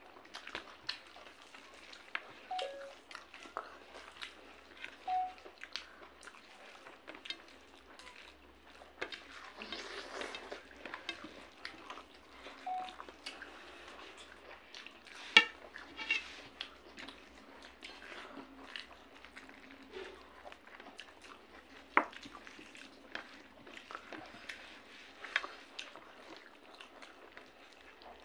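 Close-up eating sounds: fingers mixing and picking up rice and chicken curry from a plate, with chewing and wet mouth smacks, heard as scattered soft clicks and smacks. A sharper click stands out about halfway through.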